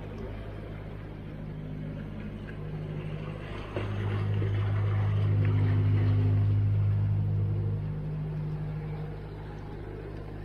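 A low, steady engine hum that grows louder for about four seconds in the middle, then eases back.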